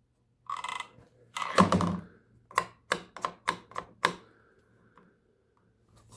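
Hands working the parts of a new lawn mower: two short knocks, then a quick run of about six sharp clicks, about three a second.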